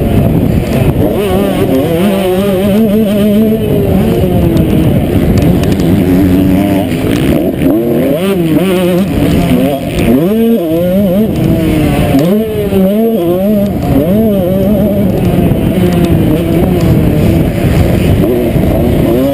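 Motocross bike's engine revving hard under race riding, heard from the rider's helmet: its pitch keeps climbing and falling as the throttle opens and closes through gear changes and corners, with a sharp drop and climb back about halfway through.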